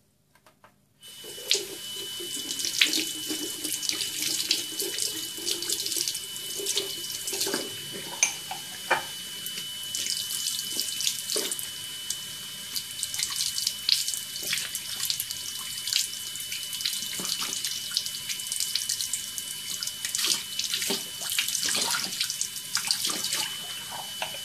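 A bathroom sink tap comes on about a second in and runs steadily into the basin. Water splashes over hands as a makeup brush is rubbed clean under the stream, with a thin steady high whine running along with it.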